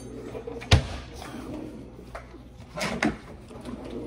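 A sharp knock about three-quarters of a second in and a couple of softer knocks around three seconds in, as things are handled in a kitchen, over the rustle of a shirt brushing the phone's microphone.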